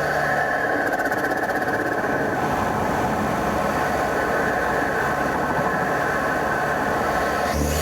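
BMW F30 328i's N20 turbocharged four-cylinder engine running steadily under way, with loud induction noise from an aftermarket Injen-style open intake.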